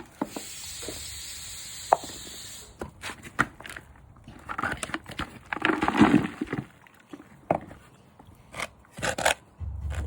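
Hands digging through soil in a potato-growing bucket: a steady hiss of loose soil at first, then scraping and rustling with scattered light knocks as potatoes are turned out, loudest in the middle.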